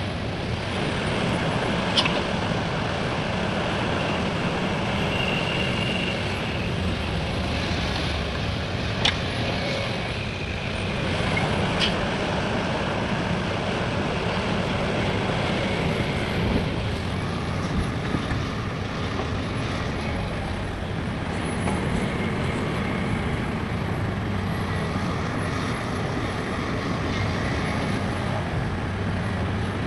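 Heavy diesel machinery, excavator and dump truck engines, running steadily, with three sharp clicks or knocks spaced several seconds apart.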